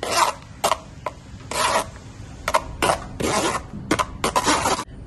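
A spoon scraping against a stainless steel mesh strainer in short, irregular strokes, pushing thick mango pulp through the mesh to hold back the fibres.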